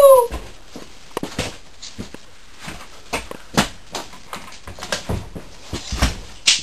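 The tail of a loud, distorted yell falling in pitch, then scattered knocks, clicks and thumps of people moving about a small room, with a sharper click near the end.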